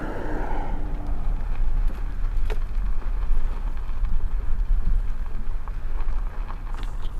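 Steady low rumble of a car driving slowly along a gravel road.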